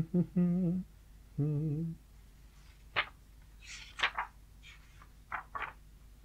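A man hums twice, two short wavering hums in the first two seconds. Then sheets of paper rustle and flap a few times as loose pages are handled and turned.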